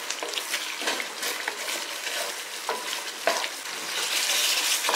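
A pan of spiced tomato and onion mixture with milk and coconut milk being stirred over the heat, sizzling steadily, with short scraping strokes of the stirring utensil. The sizzle gets louder about four seconds in.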